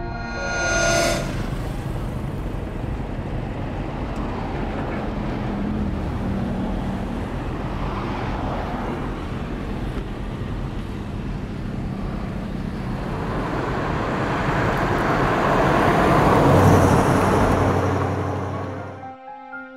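Car driving along a road, a steady engine and road-noise rush that grows louder near the end as the car draws close, then cuts off suddenly.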